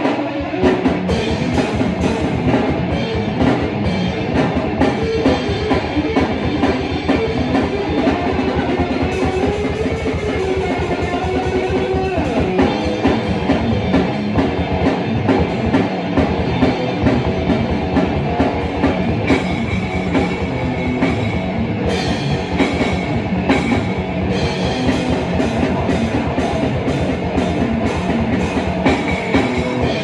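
Heavy metal band playing: electric guitar riffing over a drum kit keeping a steady beat.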